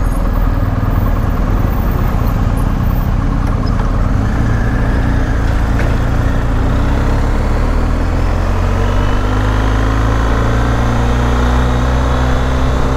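Motorcycle engine running under way, with a steady low rumble of engine and wind noise. Its pitch climbs gradually several times as the bike picks up speed.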